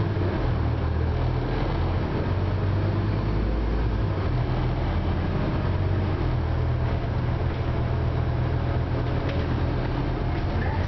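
2009 Scania OmniCity single-deck bus heard from inside the passenger saloon: its engine runs with a steady low drone over general cabin noise, and the engine note shifts about four seconds in.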